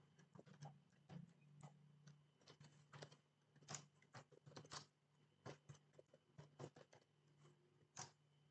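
Faint computer keyboard typing: irregular keystroke clicks, a few a second, over a steady low hum.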